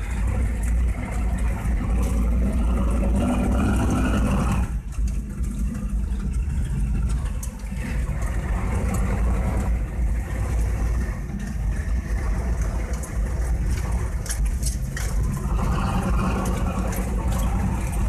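Monster truck engine heard from inside the cab, running hard under throttle over dirt mounds, easing off briefly about five seconds in and again near eight seconds, with knocks and rattles of the cab over the bumps.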